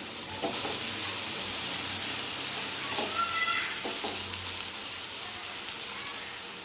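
Chopped onion, capsicum and tomato sizzling in hot oil in a nonstick pan as a wooden spatula stirs them, with a few soft scrapes of the spatula against the pan.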